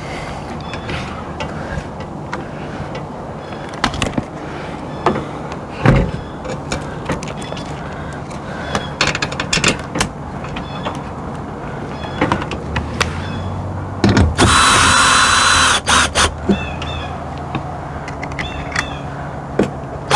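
Scattered knocks and clicks of metal awning hardware being handled, over a steady low hum. About fourteen seconds in, a cordless drill runs for about a second and a half, driving a lag bolt through the awning arm's mounting bracket.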